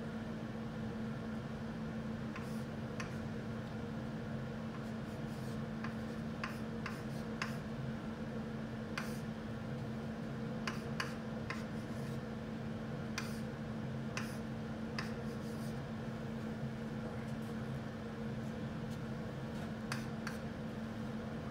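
Chalk writing on a chalkboard: short, irregular taps and scratches of the chalk as numbers are written out, over a steady low hum.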